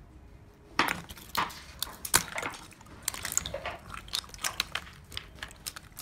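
Clear slime being kneaded by hand among ice cubes in a basin of ice water: irregular sharp clicks, knocks and crackles of ice and slime, starting about a second in.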